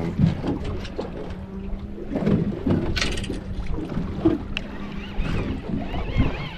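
Wind buffeting the microphone on an open fishing boat at sea, over a steady low hum, with a short hissing burst about three seconds in.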